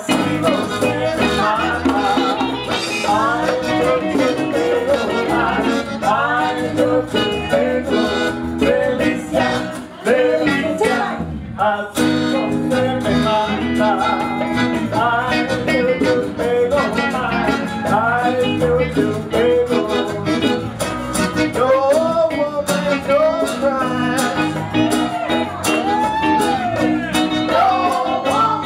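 Live band playing a song, with a lead vocal over acoustic and electric guitars, saxophone, keyboard and congas. The music dips and restarts abruptly about twelve seconds in.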